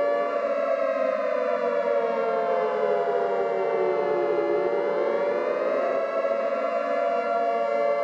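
Civil defense (air-raid) siren wailing, a nuclear-attack warning: its pitch rises quickly and falls slowly, rising again about four and a half seconds in, over a steady droning tone.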